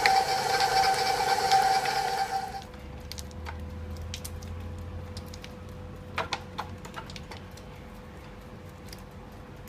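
Electric stand mixer with a flat paddle beater running at medium speed, beating softened cream cheese: a steady motor whine that cuts off suddenly about two and a half seconds in. A few light clicks and knocks follow.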